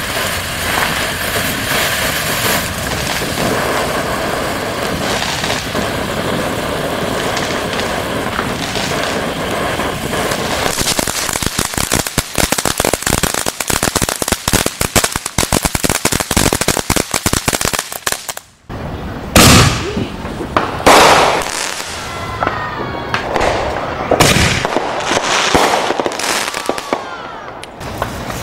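Consumer fireworks going off: a long steady hiss, then rapid dense crackling, then after a brief gap a string of loud separate bangs, some followed by whistles.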